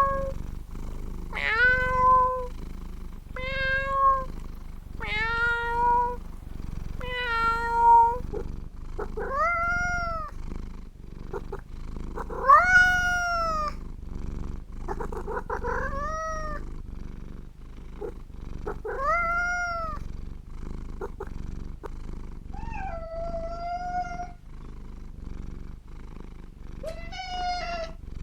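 A domestic cat meowing about ten times over a steady low purr. The first few meows are short and level in pitch, about two seconds apart; the later ones are longer and rise then fall.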